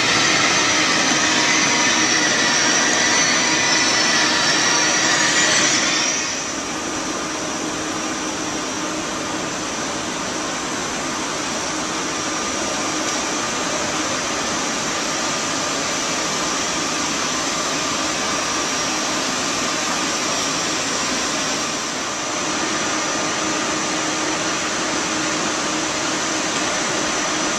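ICE 3 high-speed electric train at the platform, its onboard equipment and cooling fans giving a steady hum with a high whine. It is louder with several whining tones for the first six seconds, then settles to a lower, steadier hum.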